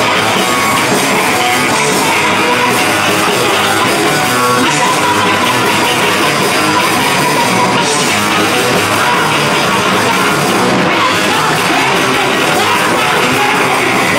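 Live rock band playing loud and continuously: electric guitars and drums, with a woman singing into a microphone.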